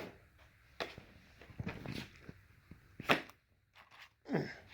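Books being handled and set down: about six sharp slaps and swishes, irregularly spaced.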